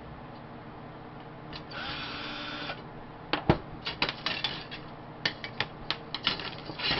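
Tools and metal lamp parts being worked during disassembly: a brief whir about two seconds in, then a run of sharp clicks and knocks as screws, bolts and parts are handled.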